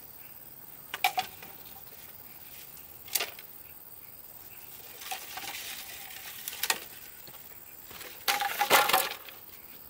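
Handling sounds: a few scattered sharp knocks and clinks with some rustling between, and the loudest cluster of clatter a little before the end.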